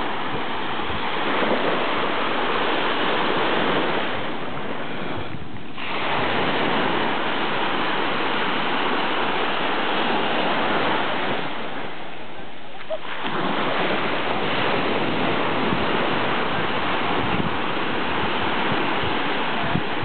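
Small waves breaking and washing up a sandy beach: a steady rush of surf that eases briefly twice.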